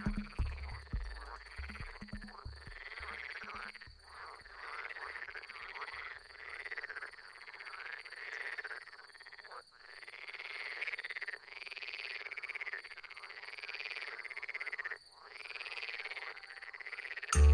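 A chorus of frogs croaking, many overlapping calls repeating again and again, with a few short breaks. Loud music cuts in right at the end.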